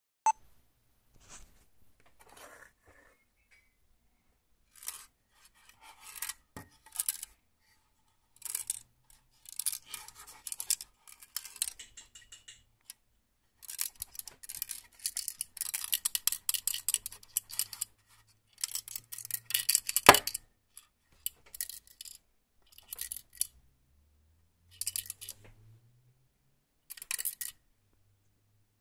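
Handling noise: irregular bursts of scraping and rubbing as a vented metal electronics case is turned over and moved about by hand, with a sharp knock about twenty seconds in.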